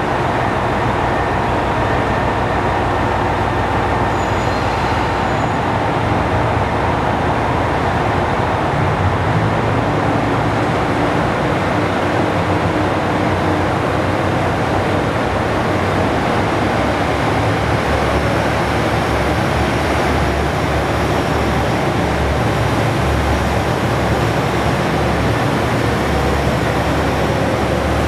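Diesel engines of a Chizu Express HOT7000-series diesel multiple unit running as the train pulls out of the station: a steady, loud engine sound with a low rumbling beat, and a faint rising tone near the end as it gathers speed.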